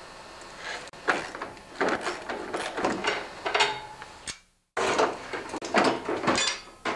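Irregular clattering and scraping of metal tools and parts as the hood bolts of a lawn tractor are undone with a wrench and the hood is taken off. The sound cuts out completely for a moment about four and a half seconds in.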